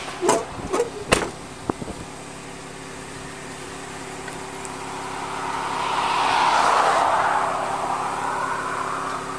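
A few sharp knocks, like a car door being shut, then a vehicle passing on the highway: its tyre and road noise swells to a peak about six to seven seconds in and fades away, over a steady low hum.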